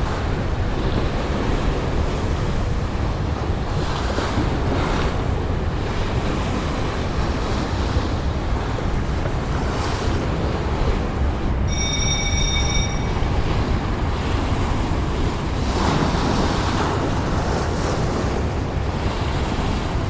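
Wind buffeting the microphone over a steady wash of water, with a brief high, steady tone about twelve seconds in.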